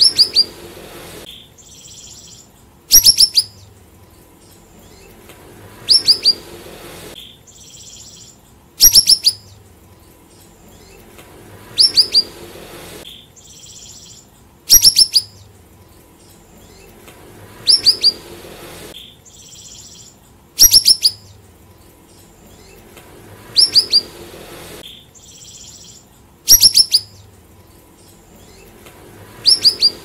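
Caged siri-siri songbird singing: a short phrase of three or four sharp, high, falling notes and then a softer buzzy note, repeated about every three seconds.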